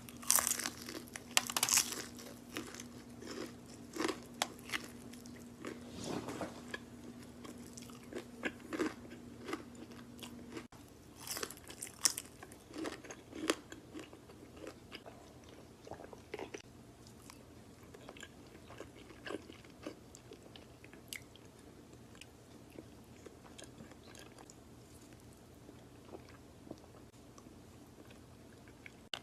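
Close-up eating sounds of a burger-and-fries meal: bites, crunching and chewing. They are loudest and most frequent for the first dozen seconds and softer after that.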